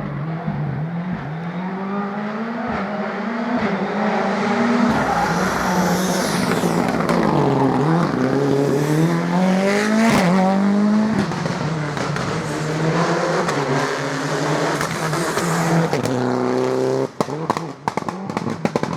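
Rally car engine under hard acceleration, pitch climbing through the revs and dropping sharply at each gear change or lift. Near the end it gives way to a quick string of sharp cracks.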